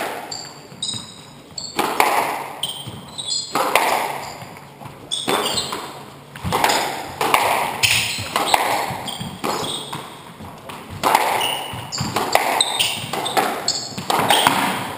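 Squash rally: the ball is struck by rackets and hits the court walls about once a second, each hit echoing in the court. Short high squeaks from players' shoes on the wooden floor come between the hits.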